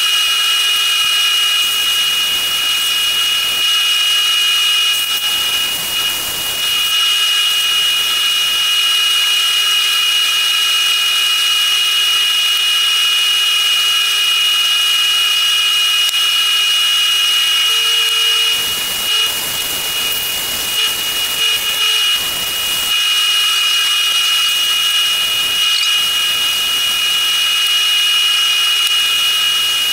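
Wood lathe running with a steady high whine, turning a small spalted maple piece. Rougher scraping noise joins in about five seconds in and again from about eighteen to twenty-three seconds, as the spinning wood is worked by hand.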